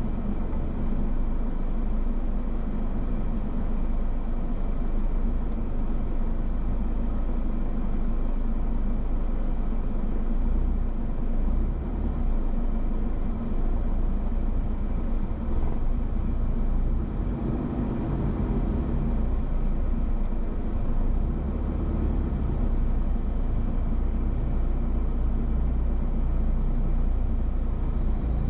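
Steady low rumble with a faint even hum, like a vehicle running, with no breaks or sudden events.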